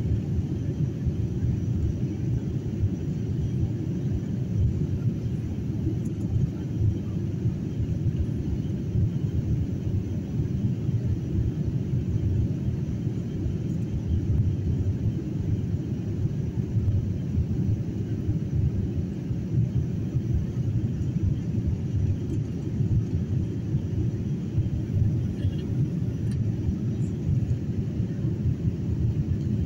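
Steady low rumble inside a jet airliner's cabin, engine and airflow noise during the climb after takeoff.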